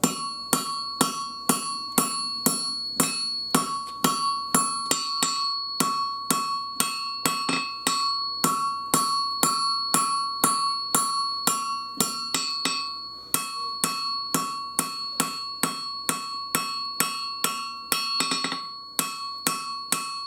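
Hand hammer striking hot 5160 steel on an anvil, forging the knife's handle: steady rhythmic blows, about two to three a second, with the anvil ringing between them and a short pause about two-thirds of the way through.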